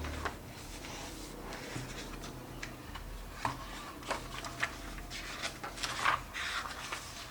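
Pages of a Hobonichi planner being leafed through and handled: scattered paper rustles and light taps, the loudest a little after the middle.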